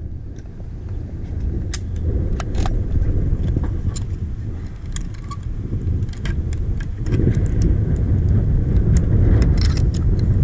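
Zip line trolley running along a steel cable: a steady low rumble that grows louder from about seven seconds in, with scattered metallic clicks and clinks from the rigging.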